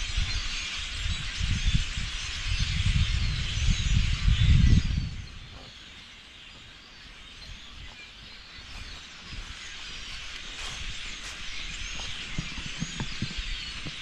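A large flock of songbirds chattering and calling all at once, a dense, continuous mass of overlapping chirps. For about the first five seconds a loud low rumble sits under it, then stops and leaves the flock calling on its own.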